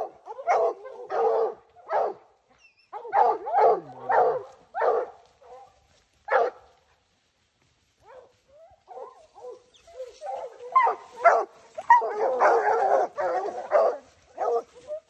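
Bear hounds baying and barking at a bear they have jumped, in repeated bursts. The barking stops for a moment about halfway through, then returns as dense, overlapping barking from more than one dog.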